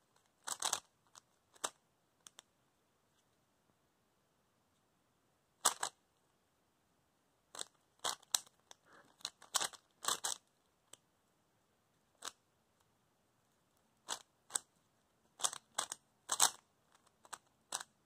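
Stickerless plastic 3x3 Rubik's cube being turned quickly by hand, its layers clicking and clacking in irregular bursts of rapid turns with short pauses between them.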